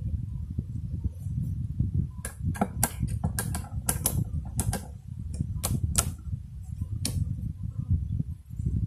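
Wind buffeting the microphone as a low rumble, with about a dozen sharp, irregular clicks clustered in the middle few seconds.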